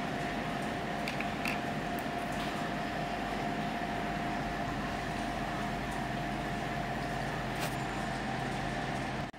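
A steady mechanical whirring hum with one constant mid-pitched tone, with a few faint clicks in the first two seconds and once more near the end.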